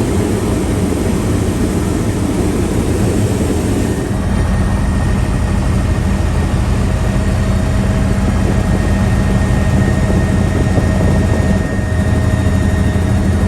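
Helicopter in flight: loud, steady rotor and engine noise with a low droning hum. About four seconds in the deep rumble drops away and a steadier hum with a few held tones takes over.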